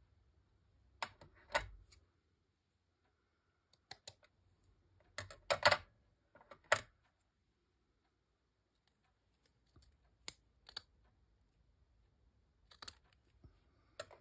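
Short clicks and rustles of small craft pieces and lace being handled and set down on a cutting mat. They come in scattered clusters, the loudest just past the middle, with quiet gaps between.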